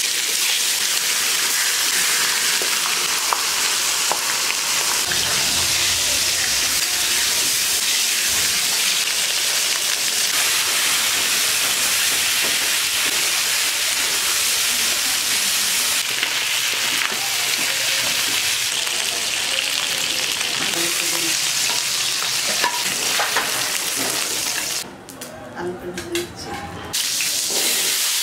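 Fish head frying in hot oil in a steel wok, sizzling steadily while a spatula stirs and scrapes it. The sizzle drops away for a couple of seconds near the end, then comes back.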